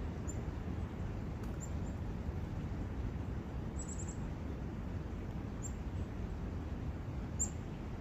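Steady low rush of a brook in a forest, with short high bird chirps now and then, including a quick run of four about four seconds in.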